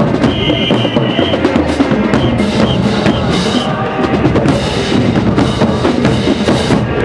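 Marching band drumline playing a cadence, with marching bass drums and snare drums beating out a driving rhythm.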